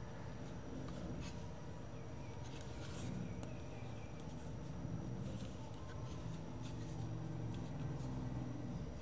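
Scattered small clicks and scrapes of tools and plastic parts as a Marshall Willen II portable Bluetooth speaker is taken apart, over steady room noise with a faint hum.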